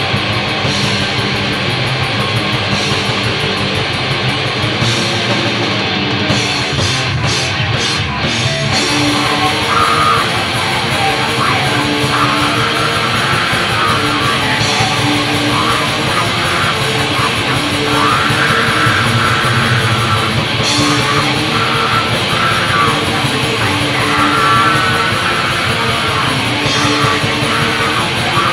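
Heavy metal band playing on a demo recording: loud guitar-driven metal with no vocals heard, the high end thinning briefly about six to nine seconds in before the full band carries on.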